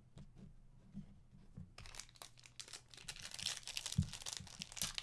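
Foil wrapper of a Prizm basketball card hobby pack being torn open and crinkled. The crackling starts about two seconds in and goes on densely.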